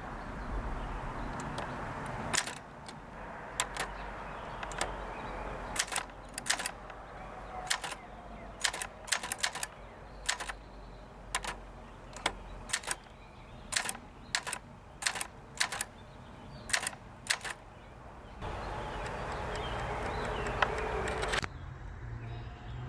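Keys of a 1958 Adler Universal manual typewriter being struck in an uneven rhythm, the typebars hitting the platen in sharp clacks, one at a time and in short runs.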